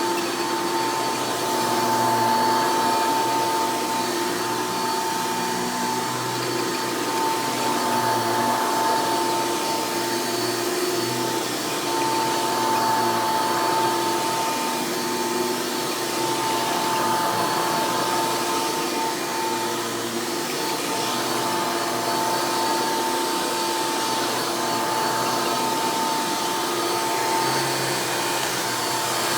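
Hoover upright direct-air vacuum cleaner running steadily, its motor and fan giving a constant whine over airflow noise.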